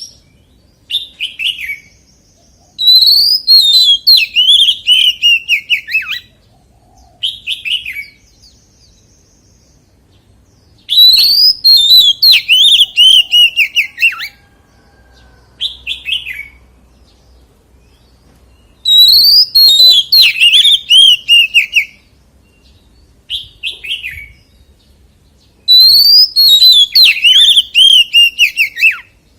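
Oriental magpie-robin singing: four long phrases of rapid, varied notes, each sliding down in pitch, coming about every eight seconds, with a short separate phrase in each gap.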